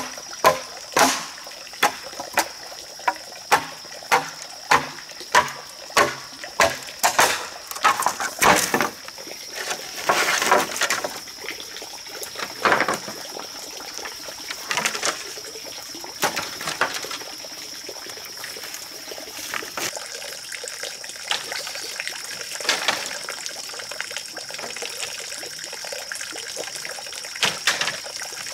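Machete chopping into a green bamboo pole: a regular run of sharp hacks, a little under two a second, for the first eight seconds or so. Then come scattered knocks and clatters of bamboo poles being handled, growing sparse.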